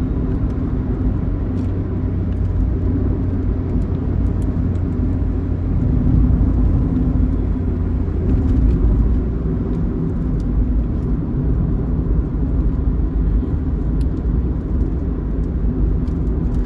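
Intercity bus at highway speed, a steady low engine and road rumble heard from inside the moving vehicle, swelling slightly a couple of times.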